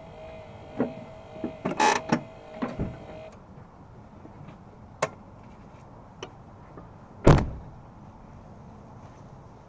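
Engine bay of a second-generation Toyota Prius: a steady hum that stops about three seconds in, with a series of knocks and clunks, the heaviest a low thud about seven seconds in, from the engine rocking on its mounts after a torque mount replacement.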